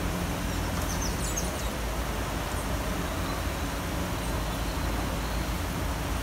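Steady city rain falling, an even hiss over a low rumble, with a few brief high chirps about a second in and again near the middle.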